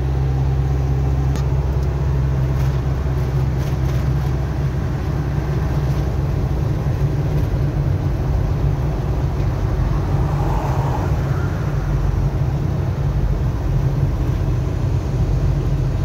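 Steady drone of a road vehicle's engine and tyre noise heard from inside the moving vehicle.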